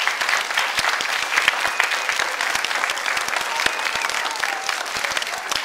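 Audience of schoolchildren applauding: many hands clapping at once, steady throughout.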